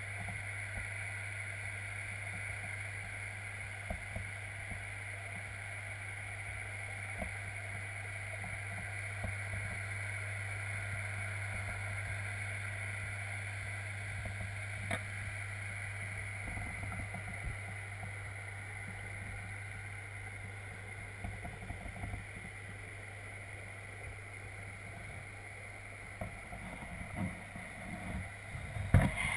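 Pond aerator's air stone bubbling, heard underwater: a steady hiss with a constant low hum under it. A few soft knocks come through, more often near the end.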